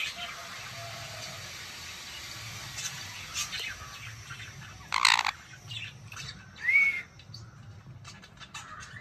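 Jenday conure giving one loud, short call about halfway through and a brief rising-and-falling chirp soon after. Small clicks of its beak on food run between the calls as it eats.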